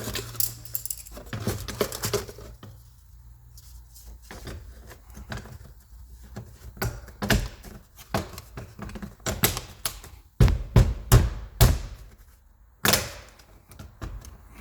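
Clicks, clatters and knocks of hard objects being handled and put back, with a quick run of about five loud knocks about ten seconds in and another loud knock near the end.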